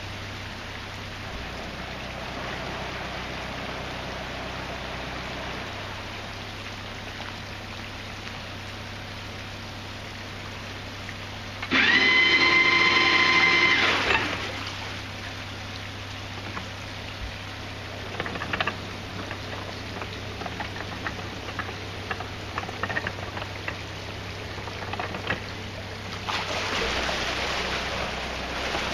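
Narrowboat diesel engine idling steadily in a lock chamber, with a horn sounding once for about two seconds about twelve seconds in. Near the end the engine picks up and the propeller churns the water as the boat moves forward.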